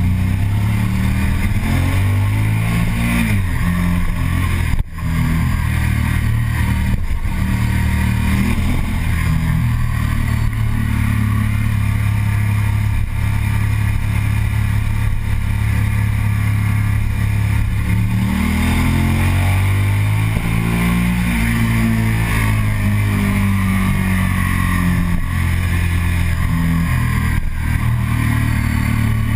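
Sport motorcycle engine running at road speed, its pitch rising and falling as the throttle opens and closes, over a steady rush of wind. The sound drops out briefly about five seconds in.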